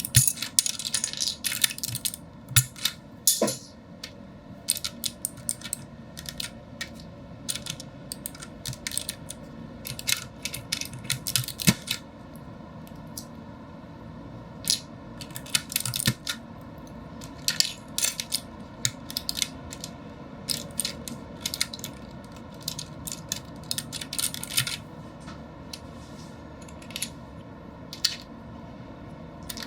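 Irregular sharp plastic clicks and clacks from a Keychron K6 mechanical keyboard and its keycaps, coming in quick clusters with short pauses, over a faint steady hum.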